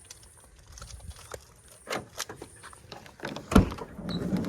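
A few light clicks and knocks, then a single loud thump about three and a half seconds in, followed by a steady low rumble.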